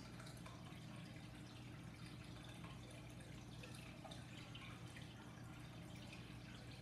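Near silence: room tone with a steady low hum and faint scattered little clicks.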